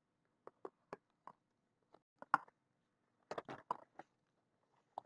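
Smartphone box contents and a clear plastic phone case being handled: a string of short taps, clicks and crinkles, the sharpest a little over two seconds in and a quick cluster of them around three and a half seconds.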